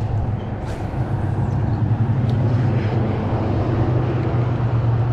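Steady low motor hum with an even rushing noise over it, unchanging throughout.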